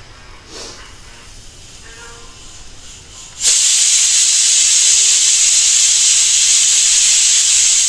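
Pigeon aluminium pressure cooker venting steam: a loud, steady hiss that starts abruptly about three and a half seconds in, as the built-up pressure is let out ahead of opening the cooker.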